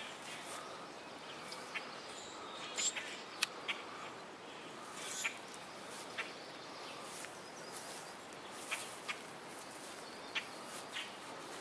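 Scattered short bird chirps, a dozen or so at irregular intervals, over a steady faint outdoor background hiss.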